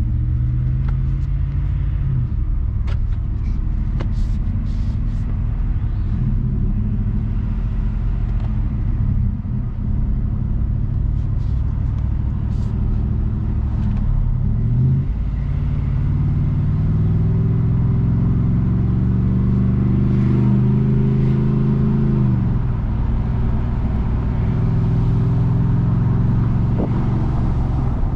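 Ford F-150 pickup's engine under way, its pitch climbing as the truck accelerates and dropping suddenly at gear changes, the longest climb ending about three-quarters of the way through. A steady low road rumble runs underneath.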